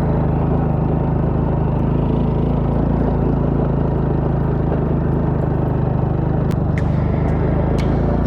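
Motorcycle engine running at a steady speed while riding, with a few sharp clicks about six and a half, seven and eight seconds in.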